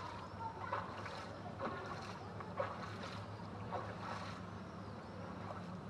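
A boat's engine running with a steady low hum, with short washes of water sounding over it every second or so.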